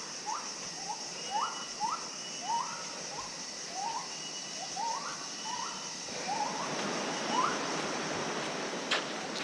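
Steady rush of river water, louder from about six seconds in, under a short rising call repeated roughly twice a second from an animal. A steady high drone runs throughout, and a sharp click comes near the end.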